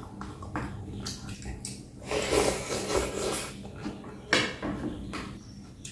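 Close-miked eating sounds: a person chewing noodle soup, with wet mouth noises and irregular clicks of chopsticks against a glass bowl. A denser stretch of chewing and mouth sound comes about two seconds in, and a sharp click a little after four seconds.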